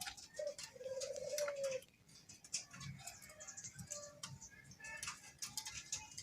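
Ringneck dove (Indonesian 'puter') cooing: one long drawn coo starting about half a second in, then a few shorter coos, with faint scattered clicks in the background.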